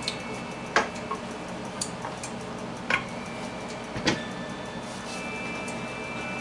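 A wooden rolling pin knocking and clattering on a countertop while dough is rolled out, about five sharp knocks roughly a second apart, the last as the pin is set down.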